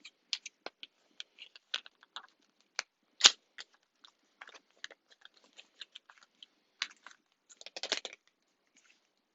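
Small clicks and taps of cosmetic packaging being handled and opened, with one louder click about three seconds in and a brief crinkling rustle near the end.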